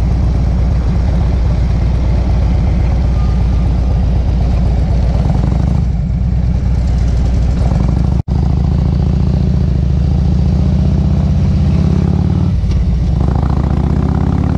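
Cruiser motorcycle engine running at low speed in traffic, cutting out for an instant about eight seconds in. It then revs up, rising in pitch, as the bike pulls away and shifts gear.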